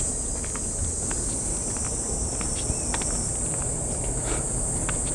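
Steady high-pitched insect chorus over a low rumbling background, with faint footsteps.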